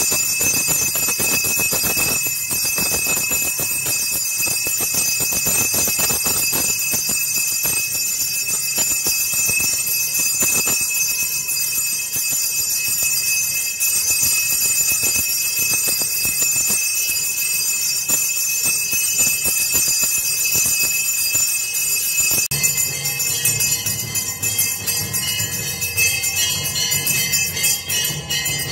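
Temple bells ringing continuously and densely for the aarti. About three-quarters of the way in, a deeper sound joins beneath the ringing.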